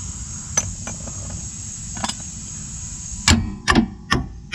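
Metal-on-metal knocks of a breaker bar striking a Steeda IRS subframe bushing sleeve to drive it into place: two light taps, then a run of four quicker, harder hits near the end. The sleeve is a tight fit and hard to seat.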